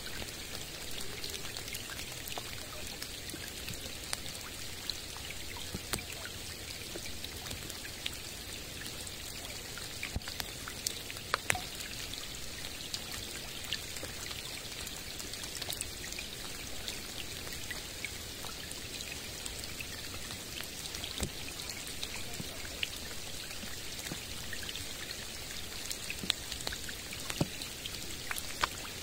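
Steady light rain falling on a lake's calm surface and the surrounding forest: a soft even hiss dotted with the small sharp ticks of single drops. A few louder drops land in the middle and again near the end.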